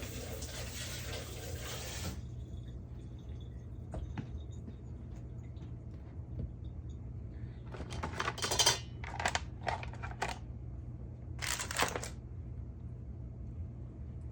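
A kitchen blender running with the salsa ingredients inside, cutting off about two seconds in, then several short pulses of blending a few seconds later.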